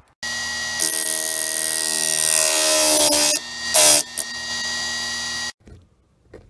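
Harbor Freight Chicago Electric chainsaw chain sharpener's electric grinding wheel starts running with a steady whine. It grows louder and harsher for about two and a half seconds, and again briefly about four seconds in, as the wheel grinds a chain cutter tooth. Then it runs freely again and stops abruptly.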